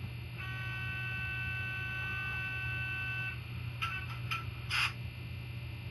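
HO-scale AEM7 electric locomotive model's LokSound sound decoder starting up through its small speaker: a steady electrical hum, with a higher steady multi-toned sound for about three seconds, then a few short clicks.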